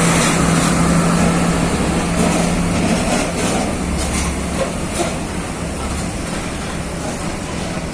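Heavy Scania truck's diesel engine running with a steady low drone as it hauls a loaded excavator trailer, growing slightly fainter in the second half.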